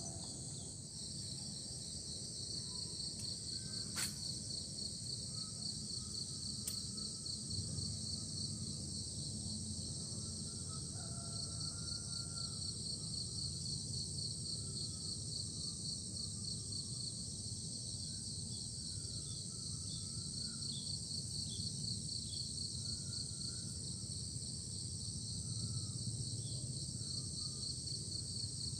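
Steady chorus of insects: a rapid pulsing trill with a higher, even hiss above it. Faint short bird calls come through now and then, and there are two sharp clicks a few seconds in.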